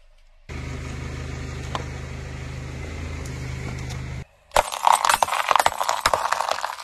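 A car's engine running steadily as the car creeps forward, then from about four and a half seconds a loud, dense crackling of brittle plastic cracking and shattering under the tyre.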